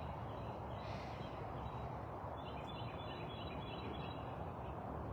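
Outdoor background: a steady rush of noise with birds calling faintly, a cluster of short chirps about halfway through.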